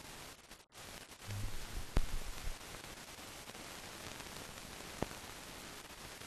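Steady hiss with no sound of its own from the scene, typical of the transfer noise of an unissued, silent newsreel film. Sharp clicks come about two seconds and five seconds in, and there is a momentary dropout shortly after the start.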